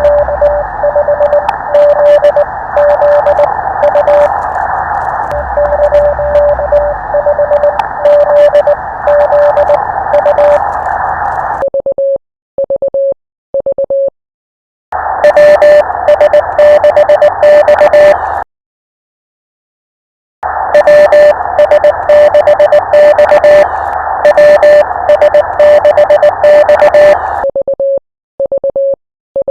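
Morse code on a ham radio transceiver: a single steady tone keyed in dots and dashes over a band of receiver hiss with static crackles. The hiss drops out twice, leaving the keyed tone on its own, and near the middle there are two seconds of silence.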